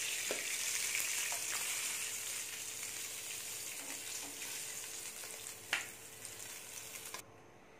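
Marinated fish pieces shallow-frying in hot oil, a steady sizzle as the pieces are turned and lifted out with a slotted spoon. There are light scrapes and one sharp tap about three-quarters of the way through, and the sizzle eases off, then cuts off suddenly near the end.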